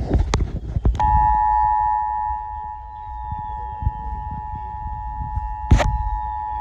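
Emergency Alert System two-tone attention signal from a Midland WR-11 radio's speaker. It comes on about a second in and holds a steady dual pitch, warning that a new emergency alert is about to be read. A few clicks come before it, and a sharp click sounds near the end.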